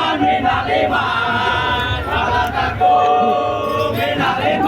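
A group of voices chanting and singing together in held notes, loud, over a steady low background.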